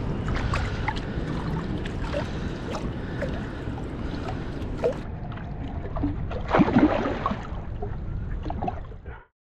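Water sloshing and trickling around hands holding a largemouth bass in shallow water as it is released, over a steady low wind rumble on the microphone. A louder burst of splashing comes about two-thirds of the way through as the fish kicks free, and the sound cuts off suddenly near the end.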